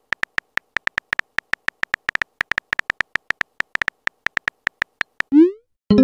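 Texting-app sound effects: a fast run of virtual-keyboard tap clicks, several a second, as a message is typed. Then comes a short rising swoosh as it is sent, and a short electronic message tone begins just before the end.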